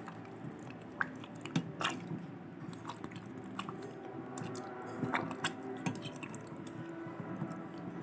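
A hand squeezing and mashing soft roasted mango pulp in water in a steel bowl: wet squelching with irregular small clicks, making a mango drink.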